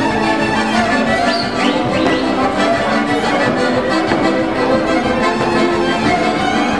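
Transylvanian village string band playing a Hungarian dance tune: several fiddles bowing the melody together over a double bass, steady throughout.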